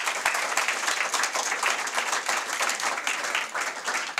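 Audience applauding: many people clapping together in a dense, steady wash of claps.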